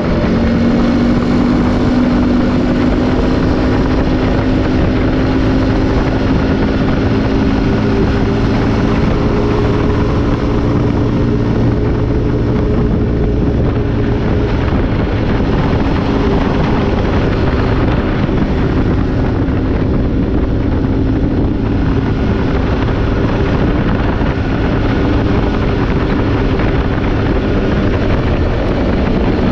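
CF Moto engine of an RL500 off-road buggy running steadily at cruising speed, heard from the open cab with wind and road noise.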